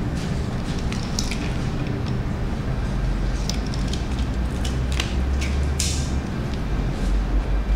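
Hand-held trigger spray bottle giving several short hissing squirts of tinting solution, over a steady low hum.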